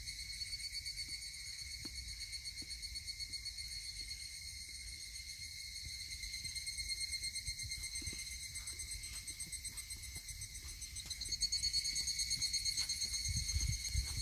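A chorus of cicadas calling steadily with a rapid pulse, growing louder about eleven seconds in. A low rumble swells under it near the end.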